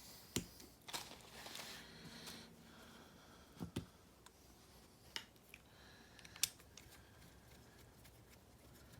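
Scattered light clicks and taps of small objects being handled on a workbench, a few sharp ticks several seconds apart, with a faint rustle about a second in.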